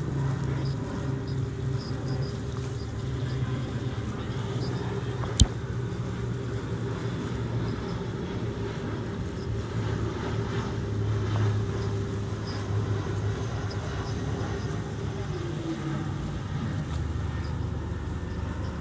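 Canal boat's engine running steadily under way, with water washing along the hull. A single sharp click about five seconds in, and the engine's tone drops slightly near the end.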